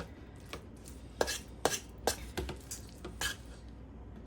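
Mixing utensil knocking and scraping against the dish while stirring shredded chicken into a thick cream cheese and BBQ sauce mixture: about six sharp, irregular clicks.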